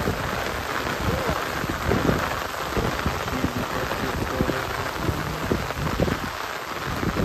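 Rain falling on a pond's open water surface: a steady hiss scattered with many brief, irregular splats of drops.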